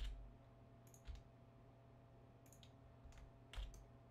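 A few faint, isolated clicks of a computer keyboard and mouse, about five spread over four seconds, over a faint steady hum.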